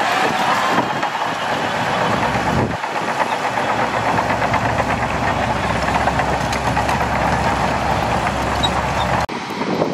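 Shantui DH17C2 bulldozer's diesel engine running steadily while it works sand. The sound shifts abruptly about three seconds in and again near the end.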